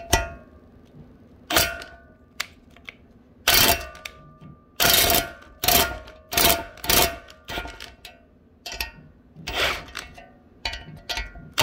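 A dozen or so irregular metal clinks and taps, several with a short ringing tail, as a homemade valve spring compressor is worked against a valve spring and retainer on a BMW M54 cylinder head during valve reassembly.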